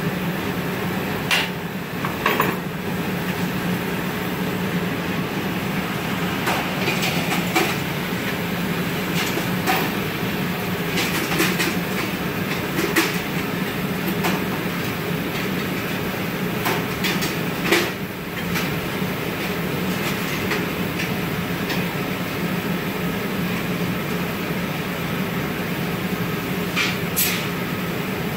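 Steady roar of a gas-fired glass furnace and glory hole reheating glass on a rod. A handful of sharp clinks and knocks from metal tools and rods are scattered through it.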